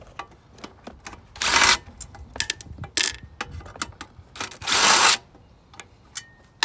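Cordless impact driver with a socket on an extension running in three short bursts, the longest about half a second, backing out the engine shroud bolts. Light clicks and clinks of the socket and metal parts fall between the bursts.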